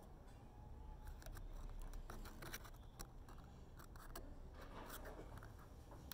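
Faint scattered taps and scrapes from a stick stirring paint in a small plastic bowl, over a low steady rumble.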